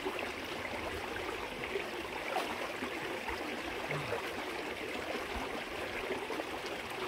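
Creek water flowing steadily over rock into a pool, a constant even rush, with small light splashes.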